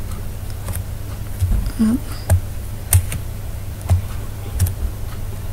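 Computer mouse clicking, a handful of sharp, unevenly spaced clicks over a steady low electrical hum.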